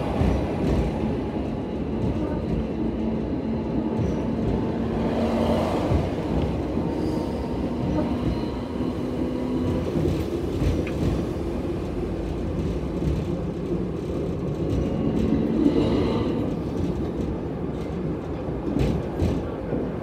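Hong Kong double-decker tram running along its street track, heard from inside the upper deck: a steady rumble and rattle of the car with a low motor hum that comes and goes. There are a few sharp clicks near the end.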